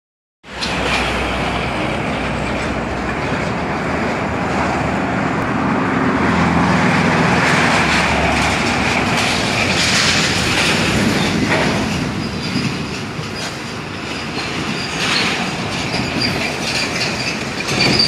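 Heavy trucks driving past: steady engine and tyre rumble, swelling as a large truck goes by about a third of the way in.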